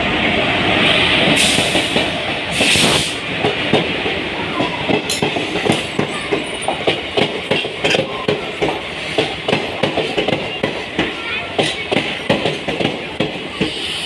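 Passenger train arriving behind an Indian Railways WAP-4 electric locomotive: a loud rushing noise as the locomotive draws past, then the coaches roll by with their wheels clicking rhythmically over the rail joints.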